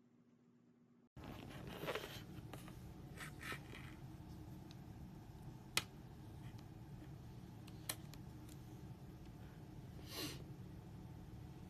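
Handling noise from small objects being moved about: rubbing and scraping after about a second of silence, with two sharp clicks about two seconds apart in the middle.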